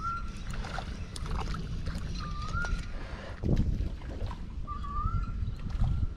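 A bird's short rising whistle, repeated about every two and a half seconds, over a low steady rumble.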